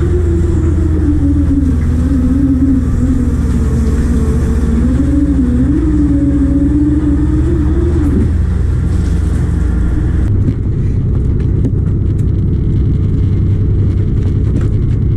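Shrimp trawler's engine and deck machinery running, with a whine that wavers up and down in pitch and drops away about eight seconds in. About ten seconds in the sound changes to a steadier low engine hum with a few light clicks.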